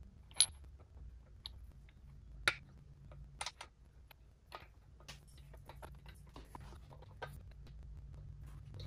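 Metal clicks and taps of steel cam gears being handled and slid onto their shafts in the timing case of a 1928 Harley-Davidson JH two-cam engine. The sharpest clicks come about half a second and about two and a half seconds in, then a run of lighter ticks as the gears are set in mesh. A faint low hum runs underneath.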